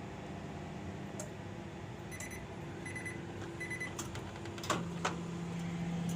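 Microwave oven running with a steady hum, then three short high beeps as its timer ends, followed by a few sharp clicks.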